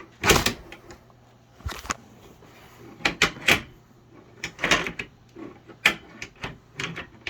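Irregular knocks, clunks and rattles of a sewing table being handled and adjusted, about a dozen short bumps spaced unevenly.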